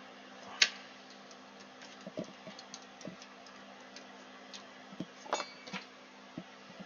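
Tweezers clicking and tapping while handling a tiny component in a small plastic bag: a sharp click about half a second in, scattered light taps, then a cluster of clicks near the end, over a steady low hum.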